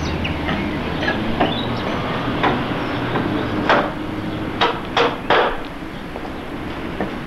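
Hammer knocking on a wooden frame: irregular knocks, the loudest a quick group of three about two-thirds of the way through, over a steady low background rumble.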